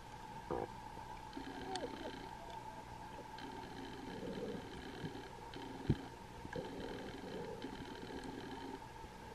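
Muffled underwater sound picked up through a sealed camera diving housing: a steady hum with a low, rumbling wash of water noise, and a few sharp clicks and knocks, the loudest about six seconds in.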